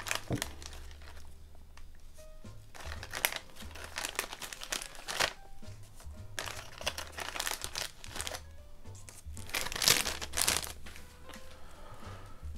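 Clear plastic bag crinkling in repeated bursts as resin miniature parts are handled and taken out of it, loudest near the end, with background music underneath.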